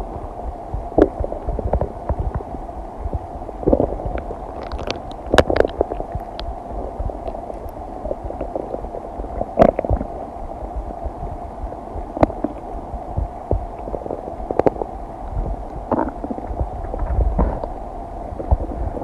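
A human stomach and intestines gurgling while digesting food. A steady low rumble runs throughout, broken every second or two by short sharp pops and gurgles.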